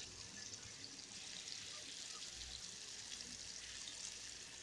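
Faint, steady sizzle of onions, tomatoes and green chillies frying in oil in a steel kadai.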